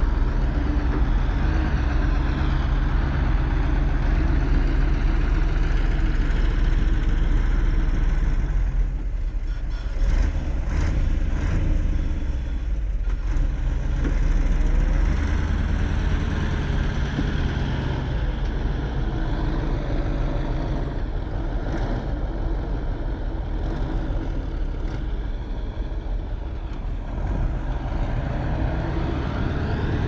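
Heavy diesel engine of earthmoving machinery running under shifting load, with a few knocks a little after ten seconds in and the engine note rising near the end.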